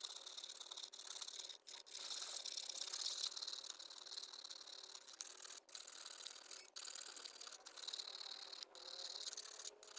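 Abrasive scrubbing on the axe: a steady hiss broken by brief gaps every second or so.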